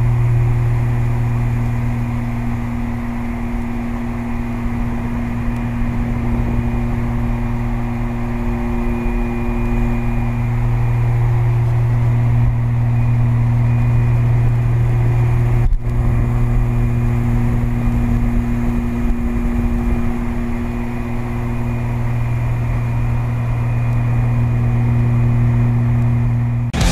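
Beechcraft Baron 58's twin piston engines and propellers droning steadily in cruise flight: a deep, even hum with a higher tone above it. The sound breaks off for a moment about two-thirds of the way through.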